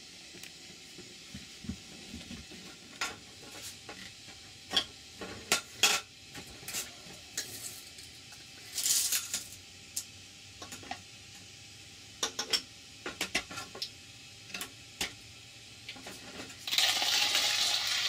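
Light clicks and clinks of a Hario Mini Mill Slim hand coffee grinder being handled on a table: the glass jar, plastic parts and metal crank knocking together, with a quick run of clicks about twelve seconds in. Near the end a steady rasping noise starts as the grinder is cranked.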